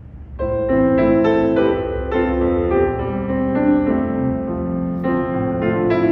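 Solo acoustic piano playing the opening introduction of a hymn, with chords and melody notes coming in about half a second in and moving on in steady note changes.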